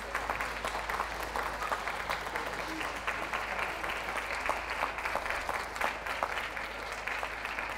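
Crowd applauding steadily, many hands clapping at once.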